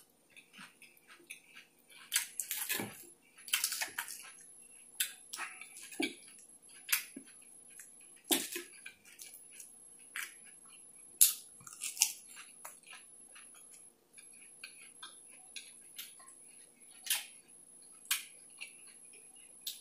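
Close-miked chewing of a forkful of lettuce salad: irregular wet mouth smacks and crunches, some sharp and loud, at uneven intervals.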